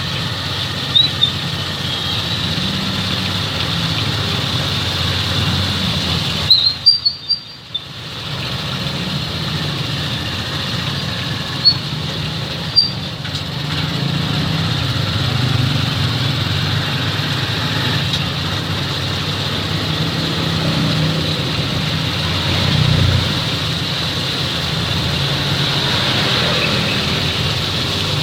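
A vehicle engine running steadily, with a constant low hum, a few sharp clicks, and a brief drop-out in the sound about seven seconds in.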